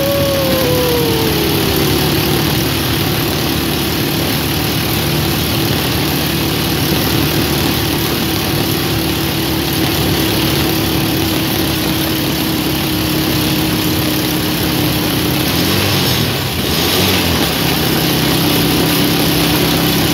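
Motorcycle engine running while riding along a road, with heavy wind rush on the microphone. The engine note drops over the first couple of seconds, then holds steady.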